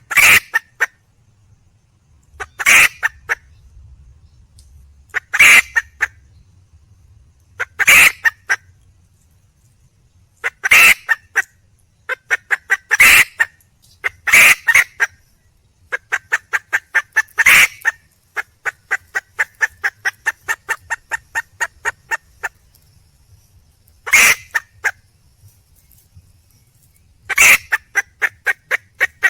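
Wild junglefowl hen calling for a mate: a loud, sharp squawk every two to three seconds, each trailing off into quick clucks, with a longer run of rapid clucks, about three a second, in the middle.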